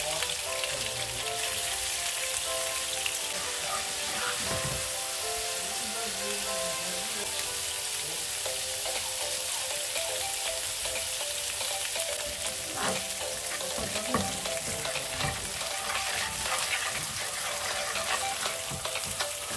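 Oil and butter sizzling steadily in a non-stick frying pan as whole cumin seeds, black peppercorns, garlic and turmeric fry for a daal tempering (tadka). A spoon scrapes and stirs against the pan now and then.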